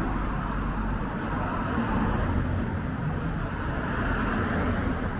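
Road traffic: cars driving past with a steady rush of tyre and engine noise that swells slightly as vehicles go by.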